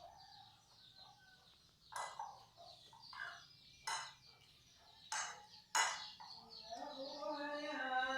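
Small birds chirping, with several sharp clicks and a drawn-out pitched sound near the end.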